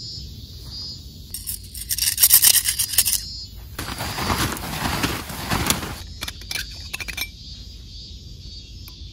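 Nylon tent fly rustling and crackling as it is pulled off a dome tent, in two loud spells about two seconds in and from about four to six seconds, with a few sharper crinkles after.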